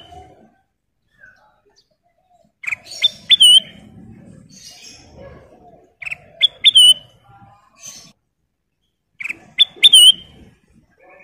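Kutilang emas bulbul singing: three short phrases of a few clear whistled notes, each ending in an upward flick, repeated about every three seconds.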